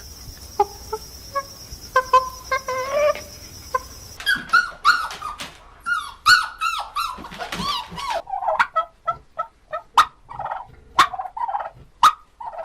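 Birds calling: a few scattered short calls over a steady high hiss at first, then from about four seconds in a dense run of many quick overlapping calls, with a few sharp clicks near the end.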